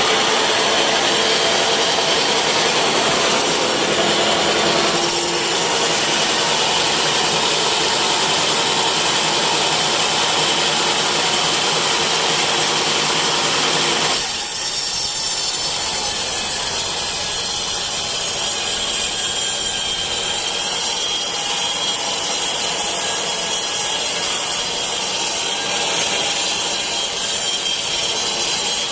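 Sawmill saw cutting through teak wood, a loud, continuous grinding hiss. About halfway through, the deeper part of the sound suddenly drops away, leaving a thinner, higher hiss.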